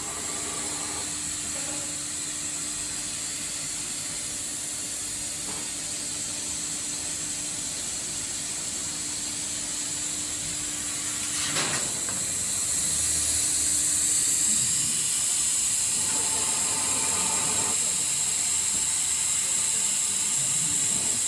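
A CO2 laser cutting machine running, with a steady hiss and a low steady hum. There is a sharp click about eleven and a half seconds in, and the hiss grows louder soon after while the hum drops out.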